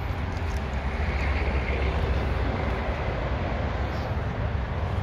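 Steady low rumble of car engines idling, with no sharp events.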